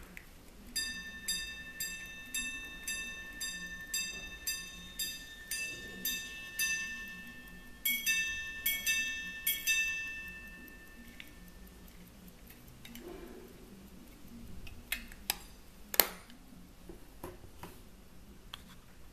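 Quarter-repeater pocket watch striking the time: its hammers ring a steady run of single notes on one gong, about two a second, for the hours, then a quicker group of two-note ding-dong strikes on two gongs for the quarters. A few sharp clicks follow near the end.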